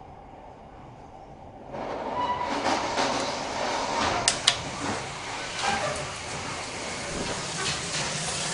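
Argo Parahyangan passenger train running on the rails, heard from the vestibule between carriages: a low rumble at first, then about two seconds in the wheel and rail noise turns much louder and rushing, with two sharp clicks close together near the middle.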